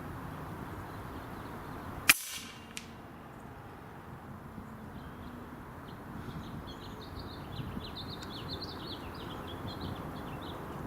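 A single air rifle shot, a sharp crack about two seconds in, followed under a second later by a much fainter tick. Steady wind noise on the microphone throughout, and from about halfway on, birds chirp repeatedly.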